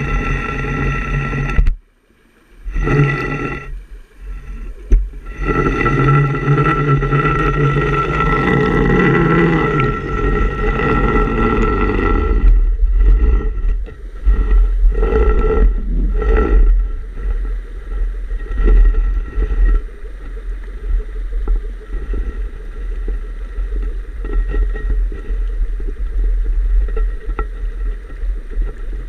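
Muffled underwater rumble heard through a GoPro's waterproof housing as water moves past it, with a steady hum of several tones underneath. The sound drops out briefly about two seconds in, and is loudest from about five to twelve seconds in.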